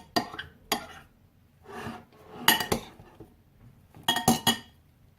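Spoon clinking against a bowl while slime is stirred: a few sharp ringing clinks in small groups, with a softer scrape about two seconds in.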